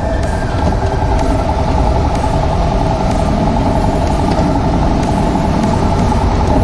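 GPX Legend Gentleman 200 motorcycle's single-cylinder engine running steadily while riding through city traffic.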